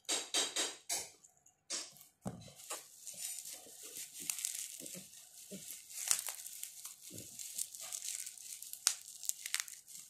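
Plastic bubble wrap crinkling and crackling as hands pull at it and unwrap it, with many small sharp crackles in an irregular stream.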